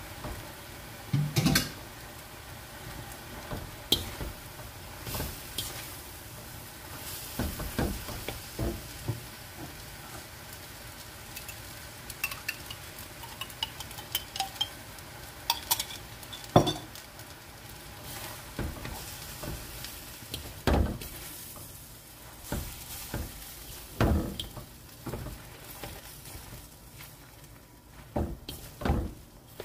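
Noodles, egg and bean sprouts stir-frying in a stainless steel wok: a steady sizzle broken by irregular clanks and scrapes of metal utensils against the wok.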